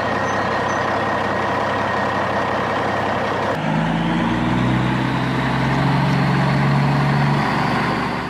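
Truck engine sound running steadily; about three and a half seconds in it changes to a deeper, steady engine hum.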